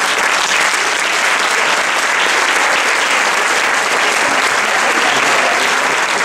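Audience applause: dense, steady clapping from a hall full of people, breaking out all at once.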